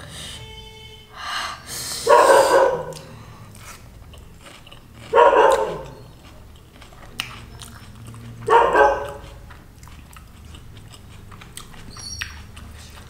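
A woman's short breathy exclamations at the heat of very spicy food, three of them about three seconds apart, with soft chewing and mouth clicks between.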